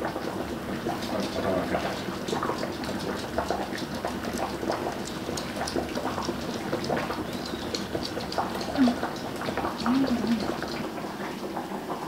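Light clicks, taps and clinks of utensils against bowls and the counter during kitchen food preparation, over a steady low hum.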